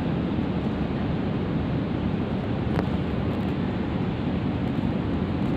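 Steady low rumbling background noise at an even level, with one faint click about three seconds in.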